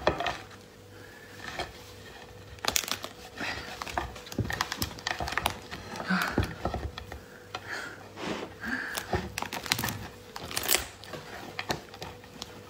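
Shell of a whole cooked lobster being cracked and torn apart by hand: a quieter start, then a long run of sharp, irregular cracks and crackling from a few seconds in.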